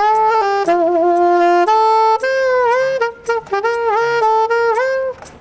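Saxophone playing a slow melody of long held notes, several of them bent down and back up in pitch.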